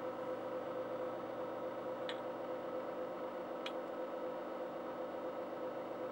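Steady machine hum with several fixed tones. Two light metal clicks come about two and three and a half seconds in, as a small part is handled on the end of a moped clutch assembly's shaft.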